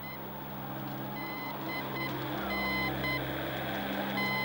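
Radio Morse code: short and long beeps in an irregular pattern over a steady low drone, with a faint whistling tone that slides down and later rises again.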